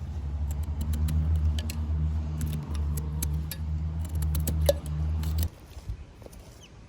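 Campfire crackling with scattered sharp pops, over a low steady hum that cuts off suddenly about five and a half seconds in.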